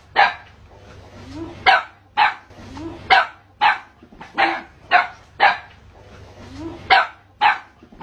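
A dog barking repeatedly at a spectacled cobra, about nine sharp single barks in quick runs of two or three with short pauses between them: alarm and aggression at the snake.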